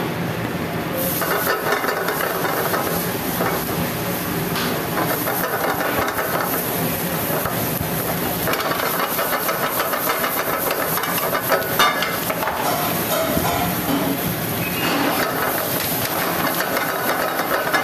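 Chopped onions sizzling in hot oil in a kadai over a gas flame. The hiss swells about a second in and runs steadily, with occasional short metal knocks.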